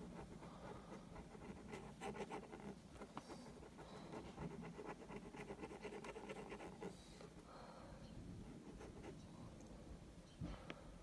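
Ballpoint pen scratching faintly on paper in quick runs of short back-and-forth shading strokes, thickest in the middle.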